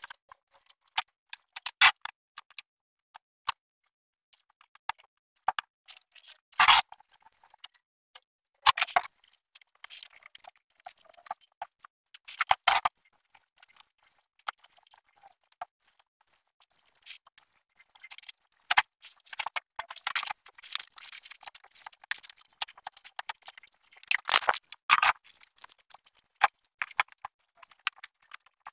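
Dry leaves and stems crackling and a plastic bag crinkling as dead plant material is pulled from flowerpots and bagged by hand: irregular rustles and clicks with a few louder crinkles, thickening into steadier rustling in the second half.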